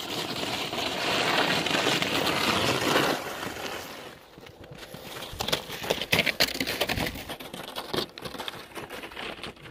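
Crunching and scraping in snow: a steady hiss of scraping over snow for about three seconds, then irregular crunching footsteps in snow with a plastic sled dragging behind.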